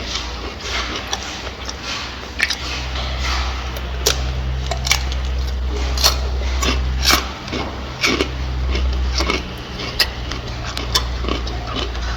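Gorilla eating, chewing and crunching food in sharp irregular crunches over a steady low rumble.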